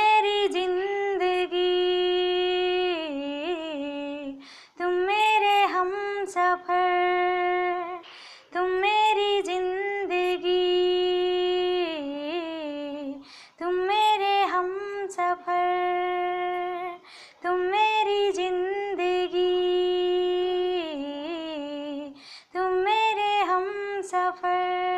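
A woman singing the melody without words and without accompaniment, in about six repeated phrases of long held notes with small turns, a short breath between each.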